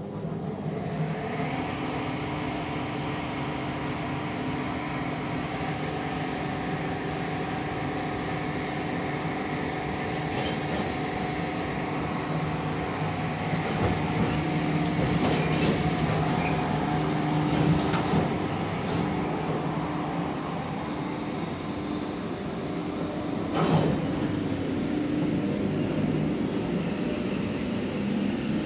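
ER9M electric commuter train running past, a steady hum with several held tones over rolling wheel noise. A few sharp clacks sound, the strongest about two-thirds of the way through.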